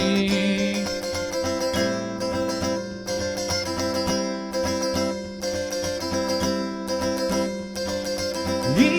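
Acoustic guitar strummed in a steady rhythm, an instrumental passage between sung lines of a pop song. A held sung note fades out in the first second, and the voice slides up into the next line at the very end.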